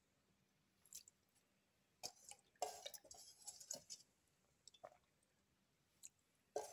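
Near silence broken by a few faint, short clicks and soft wet rustles, the longest about two and a half seconds in and another near the end, as a hand reaches into the cooked clam meat heaped in a pressure cooker pan.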